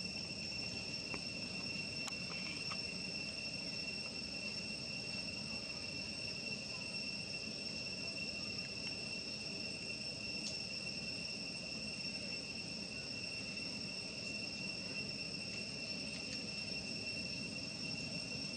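A continuous high-pitched insect trill, heard as one steady tone that never breaks, over a low background rumble.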